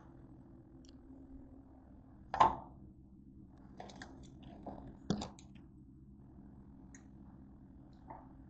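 Five sharp knocks and clatters, the loudest about two and a half seconds in, over a steady low hum.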